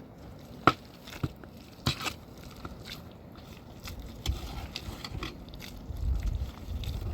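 Scattered sharp knocks and clicks with some scraping, the loudest knock about a second in, and a low rumble building near the end.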